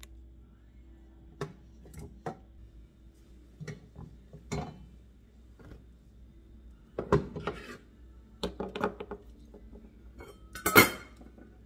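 Scattered clicks, clinks and knocks as stainless steel cookware and a plug-in power cord with its control unit are handled, the loudest knock near the end.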